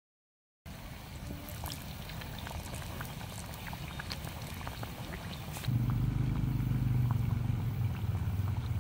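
Battered banana cakes deep-frying in a wok of hot oil: a steady sizzle with many small scattered pops and crackles, starting after a moment of silence. About five and a half seconds in, a steady low rumble comes in and becomes the loudest sound.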